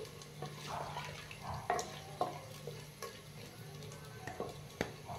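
Wooden spoon stirring chicken pieces in hot oil inside an earthenware clay pot, with irregular knocks and scrapes against the pot's sides over light frying.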